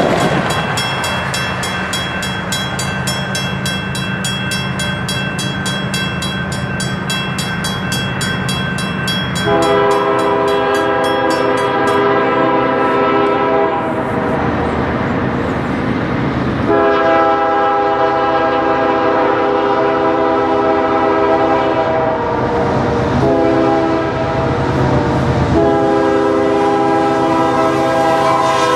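Grade-crossing mechanical bell ringing rapidly and steadily, with the low rumble of an approaching CSX freight train. About ten seconds in, the lead GE locomotive's Nathan K5HL five-chime air horn sounds the grade-crossing pattern: long, long, short, long, with the last blast held as the locomotive reaches the crossing.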